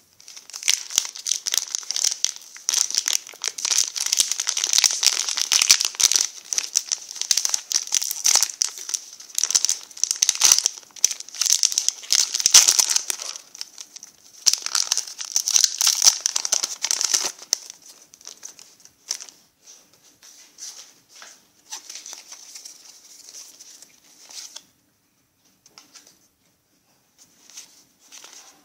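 Foil Pokémon trading card booster pack being crinkled and torn open: a dense crackling crinkle for about the first seventeen seconds. Then only scattered soft ticks as the cards are taken out and handled.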